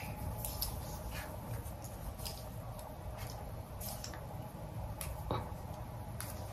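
Faint handling noises: scattered light clicks and rustles of a small plastic jar of hair wax in the hands, over a low steady hum.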